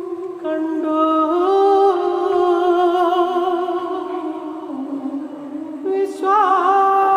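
Music: a singing voice holding long notes with vibrato over a steady sustained accompaniment, with a fresh phrase entering near the end.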